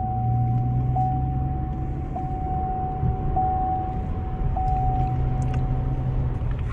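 A car's dashboard warning chime sounding repeatedly, one steady tone about every second and a bit, each one fading, over the low hum of the car.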